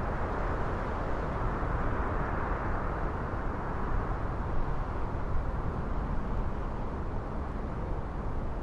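Jet airliner noise, a rushing sound that swells a couple of seconds in and then slowly fades, over a gusty low rumble of storm wind buffeting the microphone.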